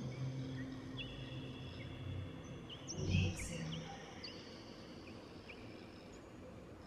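Small birds chirping: scattered short, high, falling chirps over a faint steady high-pitched hum. Soft low music tones fade out in the first two seconds, and there is a brief low sound about three seconds in.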